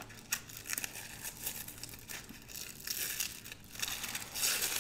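Thin wrapping crinkling and tearing as it is peeled by hand off a stack of washi tape rolls, getting louder in the second half.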